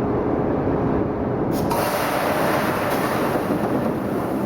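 Steady machinery drone in a diesel engine test shop, with a hiss joining in about one and a half seconds in and carrying on.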